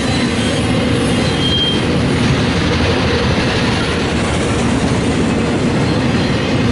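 Double-stack intermodal container train rolling past, a steady noise of steel wheels on rail, with a brief high wheel squeal about a second and a half in.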